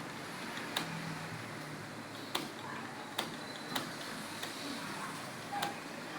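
Computer keyboard keys clicking: a handful of separate, unevenly spaced keystrokes over a steady room hiss.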